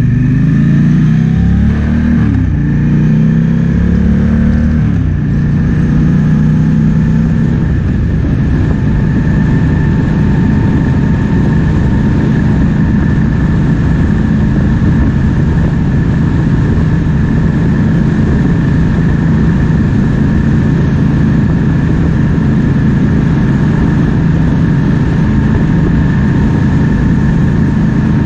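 Triumph Speed Twin 1200's parallel-twin engine under way, its revs rising and shifting through the gears for the first several seconds, then holding a steady cruise. Wind noise rushes over the microphone throughout.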